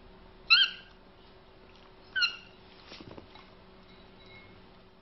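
Two short, high-pitched bonobo calls, about a second and a half apart.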